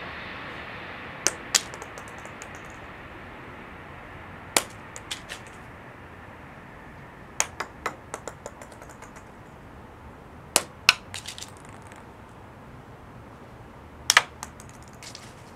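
Acorns dropping onto stone paving: sharp hard clicks, each followed by a few quicker, fainter bounce clicks, about five drops spaced a few seconds apart over a faint steady hiss.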